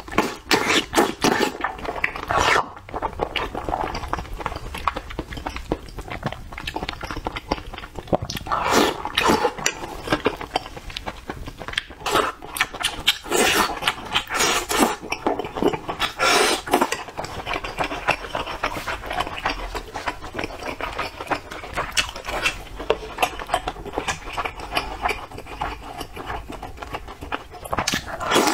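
Close-miked eating sounds: wet chewing, lip smacking and slurping as pieces of spicy seafood in chili oil are bitten off skewers, with several louder bursts.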